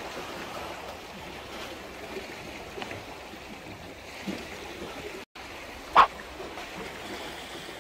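Sea water lapping and washing against breakwater rocks, a steady wash of noise. About six seconds in comes one short, sharp swish as a float-fishing rod is cast.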